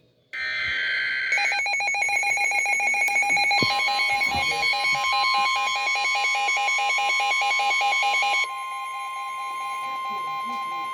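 NOAA Weather Radio Emergency Alert System activation announcing a severe thunderstorm warning. It opens with the end of the screeching digital SAME header bursts, then rapid pulsing alarm beeps. From about three and a half seconds in comes the long, steady single-pitch warning alarm tone, with the beeping dropping away near the end.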